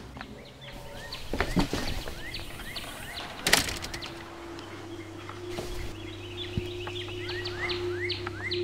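Small birds chirping in short rising calls, with a few knocks and thuds, the sharpest about three and a half seconds in. Just after that knock a low steady hum sets in and holds.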